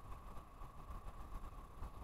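Wind buffeting the microphone: an uneven low rumble over steady background noise.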